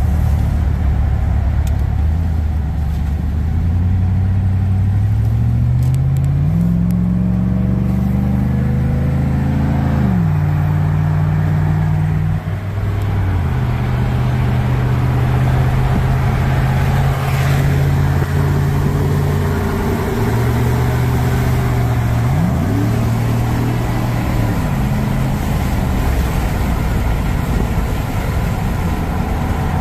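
A vehicle's engine heard from inside the cabin, accelerating up to highway speed. The revs climb and then drop back as the automatic transmission shifts up, several times in the first dozen seconds, hold steady for a while at cruise, then rise sharply once about three-quarters of the way through before settling again. Steady road and wind noise runs underneath.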